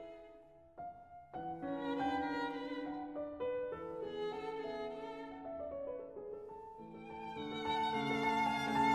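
Slow instrumental background music of held notes, dipping briefly about a second in and growing louder over the last two seconds, where the notes waver.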